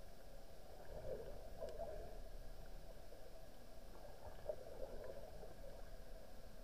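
Muffled underwater ambience picked up through a camera's waterproof housing: a steady low rumble and wash of moving water with small swells in loudness.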